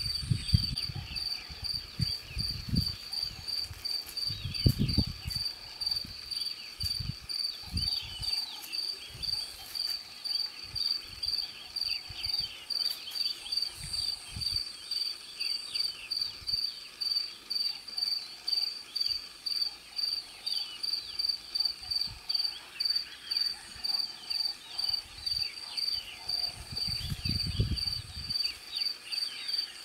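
An insect chirping steadily in a high, even pulse about twice a second, with faint high twittering behind it. A few low rumbles come near the start, about five seconds in, and near the end.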